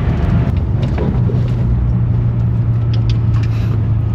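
Pickup truck engine pulling hard up a steep slope, a steady drone that drops slightly in pitch about a second in, then holds.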